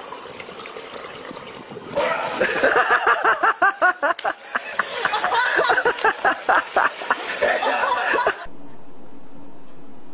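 A person laughing hard in rapid bursts over a background of water noise. About eight seconds in, the sound cuts off abruptly to a steady low hum.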